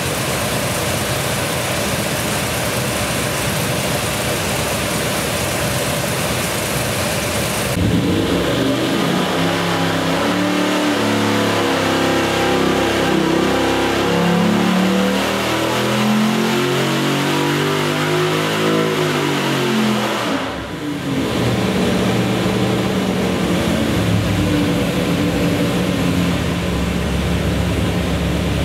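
A 427 cubic inch LS V8 running on an engine dyno. It runs steadily, then about 8 s in it goes into a full-throttle dyno pull, climbing for about 12 seconds. About 20 s in it cuts back sharply and settles to steady lower running.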